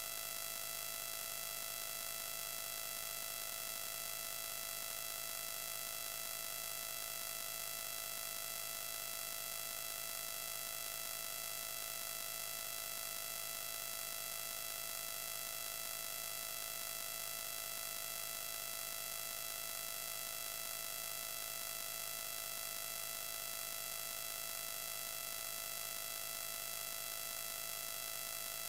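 Steady electronic static: an unchanging hiss with several faint steady humming tones, without a single change throughout.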